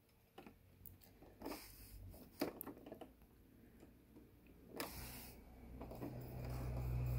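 A few faint rustles and clicks of fabric being handled, then about five seconds in an electric sewing machine starts stitching the next seam, its motor humming steadily and growing louder.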